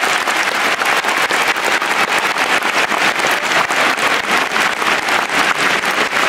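Large stadium crowd applauding, a steady dense clapping of many hands.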